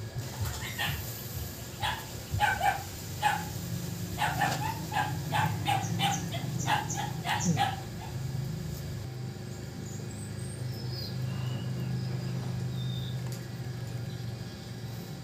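An animal barking repeatedly: a run of short barks, quickening to about three a second, then stopping about eight seconds in, over a steady low hum.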